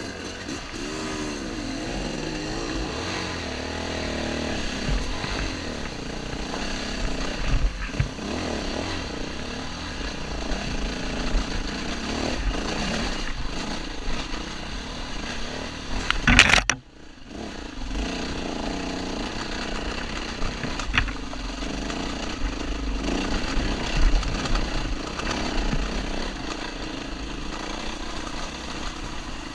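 Enduro dirt bike engine running close up, its revs rising and falling unevenly. Midway there is a sharp loud knock, followed by a brief drop in the sound.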